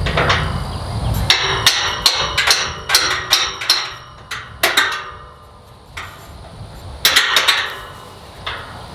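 Sharp metal-on-metal clicks and clanks from a wrench working the nuts on a pipe gate's J-bolt hinges: a quick run of clicks over the first few seconds, then a few more near the end.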